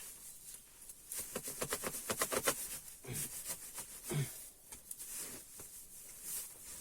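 An old cushion stuffed with dry grass and reeds being pulled and torn apart by hand, with dry crackling and rasping. It starts with a quick run of strokes about a second in, then goes on as scattered rustles.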